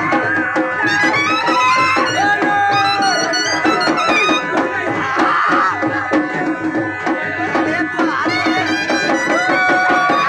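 Shehnai playing a winding, ornamented melody over a steady drone, with drums beating along.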